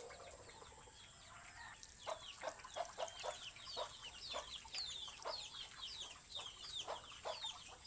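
Chickens clucking, with many quick, high chirps starting about two seconds in.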